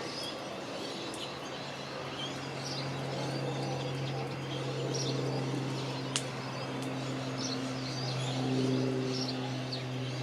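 Small birds chirping repeatedly over a steady low hum, with a single sharp click about six seconds in.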